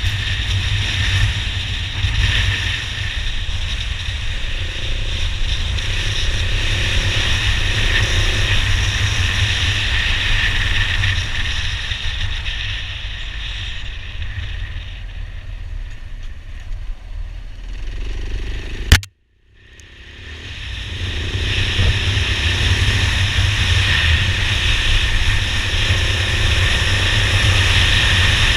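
Motorcycle being ridden, a steady rush of wind and engine noise picked up by an onboard camera. About two-thirds through there is a sharp click and a moment of silence, after which the noise builds back up.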